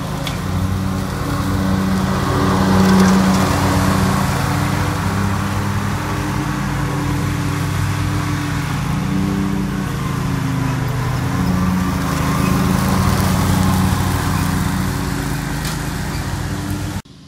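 Ferris zero-turn riding mower running steadily under load as it mows, its engine note swelling and easing a little as it moves about the lawn. The sound cuts off suddenly near the end.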